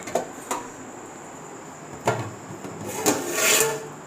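Metal cookware being handled as the weight and lid are taken off a pot of dum-cooked biryani. There are two short knocks near the start, a sharper clank about two seconds in, then a longer scraping rattle near the end.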